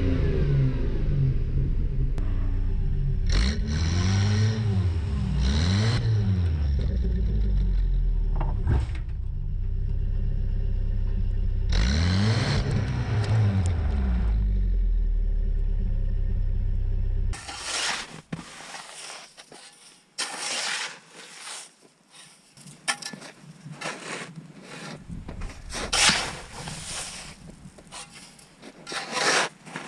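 Toyota pickup's engine, heard close by the tailpipe, revving up and falling back several times as the rear tyre spins in deep snow, the truck stuck and trying to pull out. About 17 seconds in the engine sound stops, and scattered close scraping and crunching noises follow.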